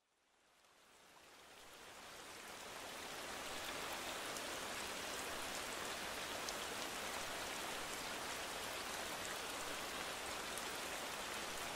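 Steady rain falling, fading in from silence over the first few seconds, with scattered small drop ticks.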